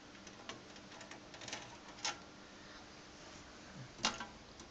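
Scattered light clicks and knocks of a circuit board and its parts being handled, with two louder knocks, about two seconds in and near the end.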